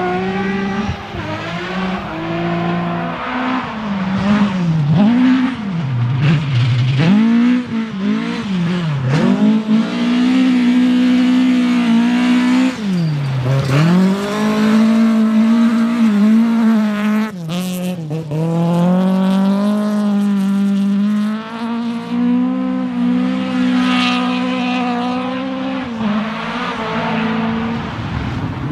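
Rally car engine at full throttle. The revs drop and climb back several times in the first half, then hold high for long stretches. A single sharp crack comes about 17 seconds in.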